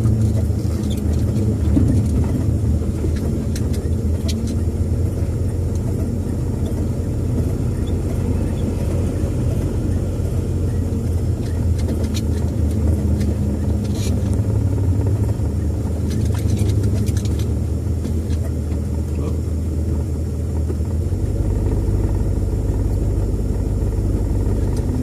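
Cabin sound of a 1966 Ford Thunderbird on the move: steady engine and road rumble with a few faint rattles, which the passengers put down to a gap between the hubcaps and the wheels. Near the end the low drone shifts.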